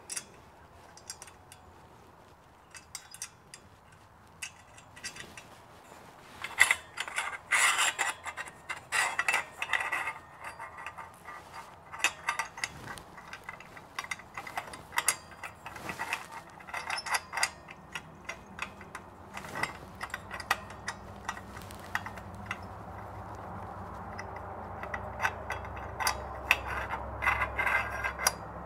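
Hand ratchet wrench clicking in quick runs, with metal clinks, as exhaust header bolts are turned. A low steady hum comes in during the second half.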